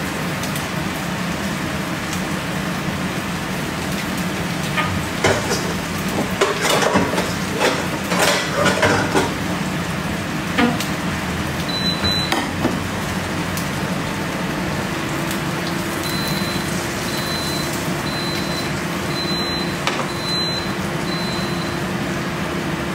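Kitchen work over a steady rushing noise: clatters and knocks of dishes and utensils being handled, thickest a few seconds in. About halfway through a low hum starts, and near the end comes a run of short high beeps, about one a second.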